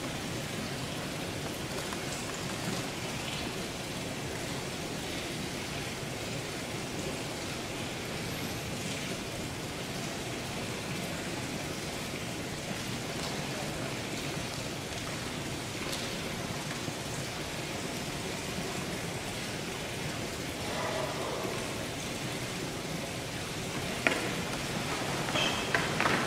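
Steady, even hiss of room tone, with a few faint knocks near the end.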